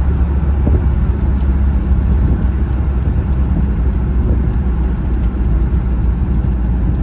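Steady low rumble of a moving car, engine and tyre noise on the road, heard from inside the car's cabin.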